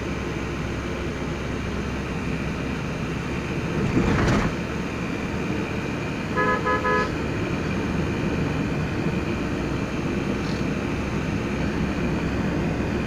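Steady road and engine noise heard from inside a moving car, with a brief loud rush of noise about four seconds in. A car horn gives three quick toots about halfway through.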